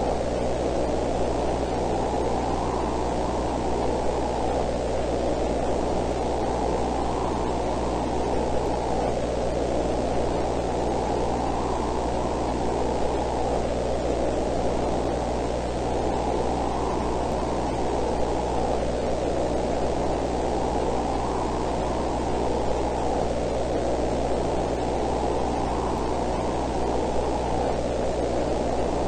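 Steady rushing static-like noise, heaviest in the low and middle range, gently swelling and easing every few seconds over a low steady hum.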